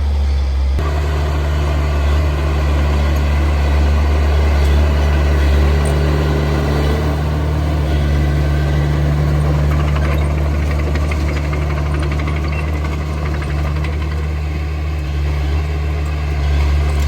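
Heavy diesel engine of earthmoving machinery running steadily at a constant low throb, with no change in revs.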